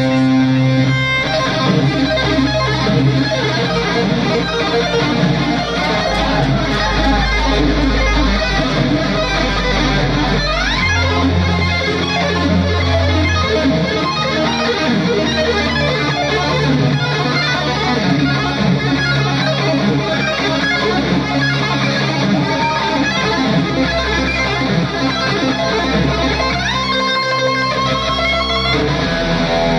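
Live instrumental rock: a fast electric guitar lead played on a double-neck electric guitar over a band with bass, heard from the audience. It includes a couple of quick rising pitch slides, one about a third of the way in and one near the end.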